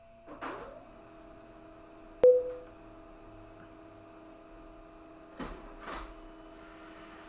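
Samsung M2070-series laser printer printing a test page: its motors run with a steady whine, broken by a short rustling burst at the start, a sharp clack about two seconds in, and two more short bursts near the end.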